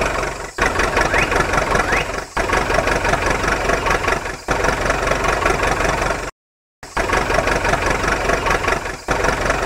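Vehicle engine sound effect laid over the toy-vehicle scene, an engine running steadily. It comes in several spliced stretches with brief drops between them and a half-second gap of silence about six seconds in.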